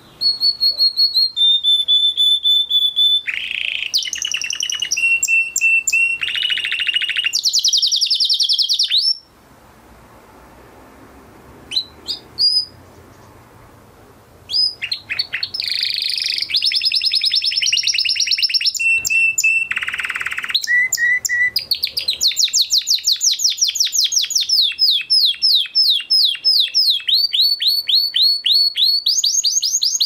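Domestic canary singing: phrases of held whistled notes and rolling trills, breaking off for about five seconds near the middle, then resuming with a long run of rapid trills.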